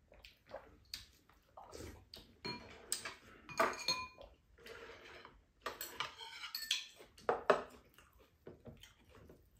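Metal spoons and chopsticks tapping and clinking against ceramic bowls and a plate during a meal, in short irregular clinks.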